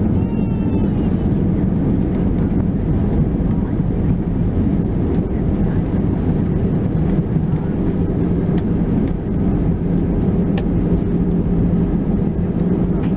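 Steady rumble and hum inside the cabin of an Airbus A320 rolling along the runway after touchdown, with a brief high rising whine near the start.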